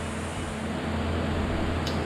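A steady low mechanical hum over an even background noise, with a light click near the end.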